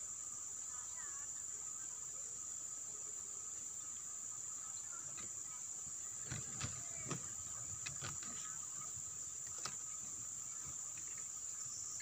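Steady, high-pitched chirring of insects, with a few short sharp clicks between about six and ten seconds in.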